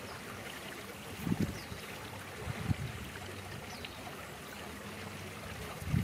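Steady hiss of outdoor background noise with three dull low thumps about a second and a half apart, and a few faint, short high chirps.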